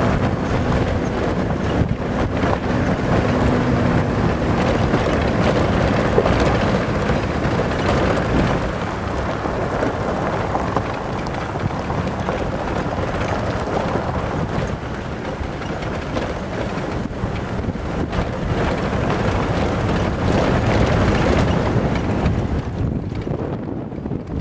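Vehicle travelling along a gravel dirt road: steady rumble of tyres on loose surface mixed with wind noise on the microphone, thinning slightly near the end.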